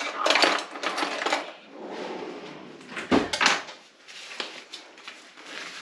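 Dishes and cutlery clattering as they are handled, with a louder knock about three seconds in.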